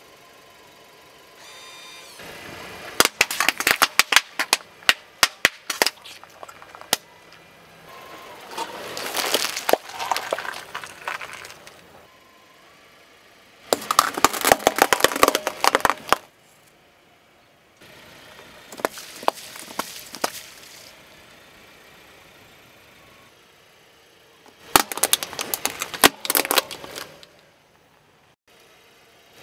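Brittle plastic objects cracking and crunching as a car tyre rolls over and crushes them. There are five separate bursts of sharp snapping and crunching, each lasting a few seconds, with quieter gaps between them.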